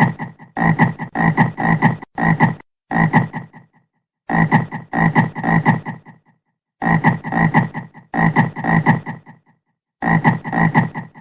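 Frog croaking in short bouts of rapid calls, about three or four a second, each bout cut off abruptly by a gap of dead silence.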